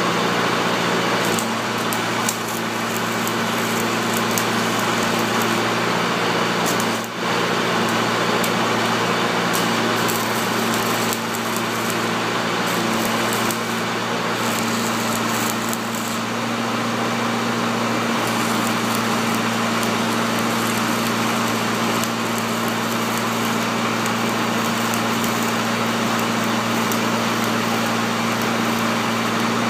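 Stick-welding arc crackling and hissing steadily on a loader's bucket-tilt pin bracket, with a steady hum underneath and a brief break in the arc about seven seconds in.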